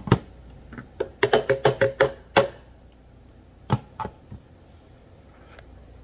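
Hand knocking on a plastic blender jar packed with shaved ice, hollow plastic taps: a couple of single knocks, a quick run of about eight knocks, then three more spaced out.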